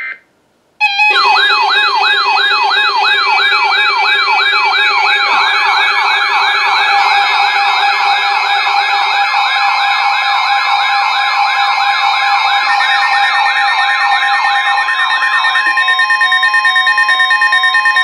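Several electronic sirens warbling rapidly together over steady alert tones, starting about a second in after a short beep. About 15 seconds in the warbling stops and steady alarm tones pulse rapidly. This is the attention signal ahead of a severe thunderstorm warning broadcast.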